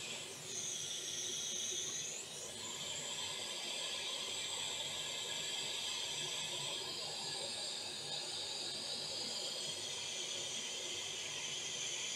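Hot air rework station blowing a steady hiss of hot air through its nozzle onto a surface-mount chip, reflowing the solder. The tone of the hiss shifts briefly near the start.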